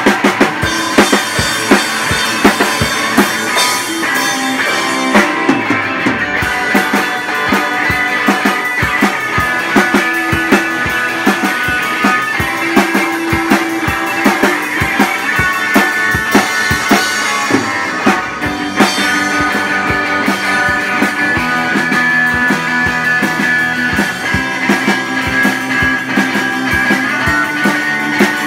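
A rock band playing live: electric guitars over a drum kit, with steady drum strikes and cymbals.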